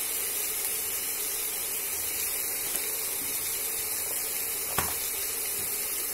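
Onion paste and ground spices sizzling in hot oil in a kadai, a steady hiss, with one light tap a little under five seconds in.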